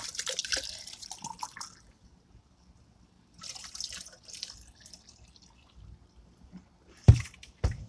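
White vinegar pouring and dripping from a plastic gallon jug into an exhaust pipe inlet, in a splashy spell at the start and another about three and a half seconds in. Two sharp knocks near the end.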